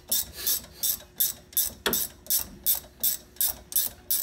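18 mm ratchet clicking in a steady rhythm, about three clicks a second, as it loosens a front brake caliper bolt.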